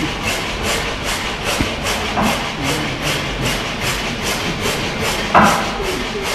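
Large horizontal stationary gas engine running with a steady rhythmic clatter, about three beats a second. One brief louder sound comes about five seconds in.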